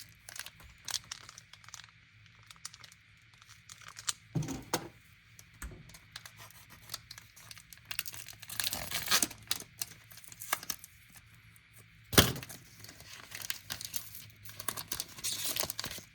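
Foil Pokémon TCG booster pack wrappers being torn open and crinkled, in irregular crackles with one sharp rip about twelve seconds in.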